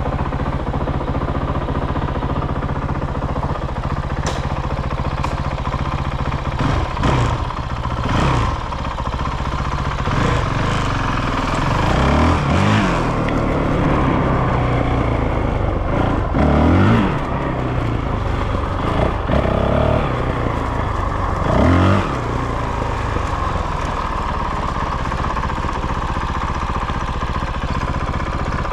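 Honda CRF450RL's single-cylinder four-stroke engine idling, blipped several times with quick rises and falls in revs, then settling back to a steady idle. The idle is being checked after a new aftermarket ECU has been fitted and the throttle position recalibrated.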